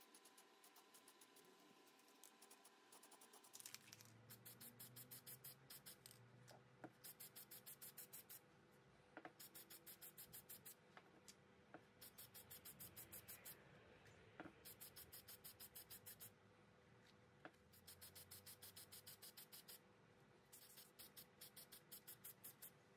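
Aerosol spray-paint can being shaken in repeated bursts of a second or two, its mixing ball rattling in rapid, even clicks, with a few single light knocks between the bursts.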